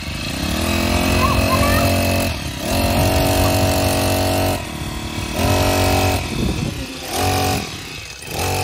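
Small petrol engine of a backpack brush cutter running and being revved: it speeds up and drops back toward idle about five times, each rev shorter than the first.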